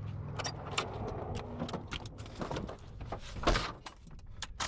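A car engine running low and steady fades out within the first second, followed by a string of short clicks and rattles with one louder knock about three and a half seconds in.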